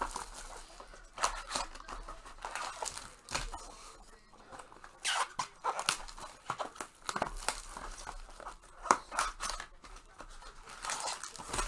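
Card-box packaging being torn open and handled: irregular crinkling, tearing and rustling with scattered sharp clicks as a sealed box of trading cards is opened.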